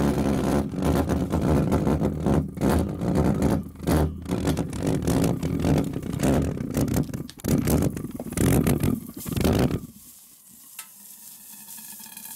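Homemade valveless pulse jet running with a loud, steady buzz. In the last few seconds it runs unevenly with breaks, then stops about ten seconds in, leaving only a faint hiss.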